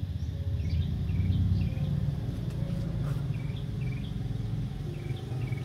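Low, steady rumble of a motor vehicle, louder for a moment about a second in, with a short high chirp repeating about twice a second over it.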